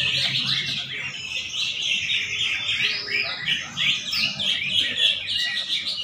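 Many caged green leafbirds (cucak ijo) singing at once: a dense, continuous chatter of overlapping high chirps and trills.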